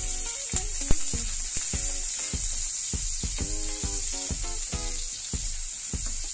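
Julienned ginger sizzling in hot oil in a nonstick wok. The sizzle starts suddenly as the ginger drops in and then holds steady while the strips are stirred with a slotted spatula.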